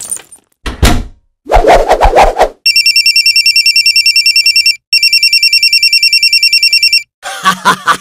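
Stock sound effect of an old-style electric telephone bell ringing twice, each ring a rapid trill about two seconds long with a short break between. Before it come a short thump and a quick burst of rattling hits.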